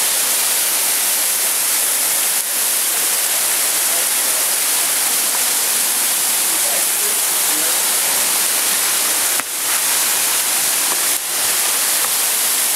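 Mountain stream water pouring and splashing over boulders in a small waterfall, close by: a loud, steady hiss.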